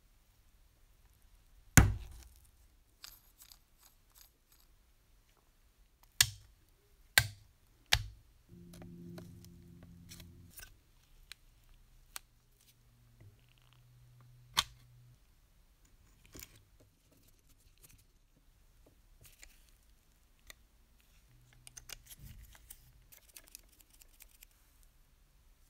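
Sharp clicks and knocks of small metal parts of a clockwork toy locomotive's chassis and wheels being handled and fitted together, with light handling noise between. The loudest knock comes about two seconds in, three more follow in quick succession around six to eight seconds, and a low hum runs for several seconds in the middle.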